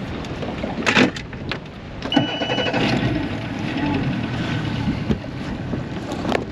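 Wind buffeting the microphone and water noise around a small fishing boat, with a sharp knock about a second in and a short high beep about two seconds in.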